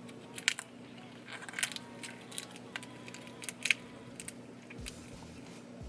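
Close-miked mukbang eating sounds from a seafood boil: scattered sharp clicks, crackles and wet mouth noises of chewing and handling shellfish.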